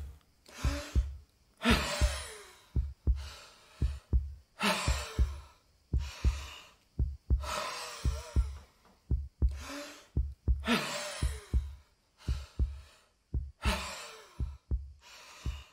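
Sound effects of a man's heavy, groaning breaths, about eight drawn-out sighs with a falling voiced tone, over a steady low heartbeat thump.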